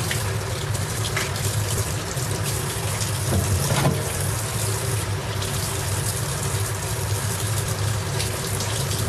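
Kitchen tap running into a stainless steel sink as hands wash something under the stream: a steady rush of water over a steady low hum.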